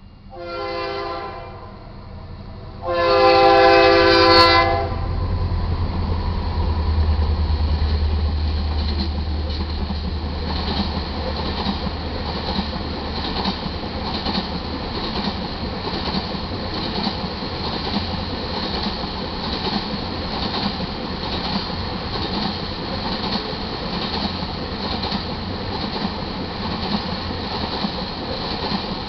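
Horn of a BNSF GE C44-9W diesel freight locomotive: a short blast, then a longer and louder one, the end of the grade-crossing horn signal. The locomotive passes with a deep engine rumble, then the ethanol tank cars roll by with steady, rhythmic wheel clicking over the rail joints.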